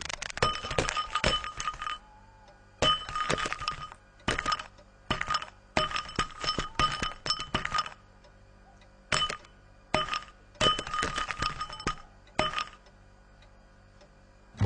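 A hard bowl clinking and rattling in short bursts with pauses between them, each burst ringing at the same few pitches, like a food bowl being knocked about on a tiled floor.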